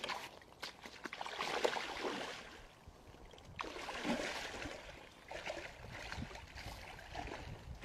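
Water sloshing and splashing around a person's legs as he wades through a shallow pond, in three surges a second or two long.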